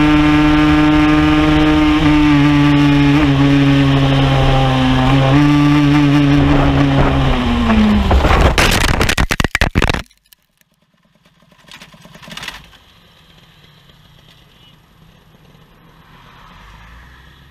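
Kawasaki Ninja 150 two-stroke single-cylinder engine running at speed, its note falling about seven and a half seconds in. Then about two seconds of loud scraping and clattering impacts as the motorcycle crashes, cut off abruptly, leaving only faint sounds.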